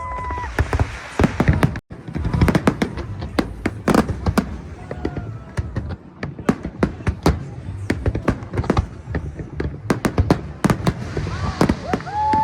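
Fireworks display: a dense, irregular barrage of sharp cracks and bangs, several a second. The sound cuts out for a moment just under two seconds in.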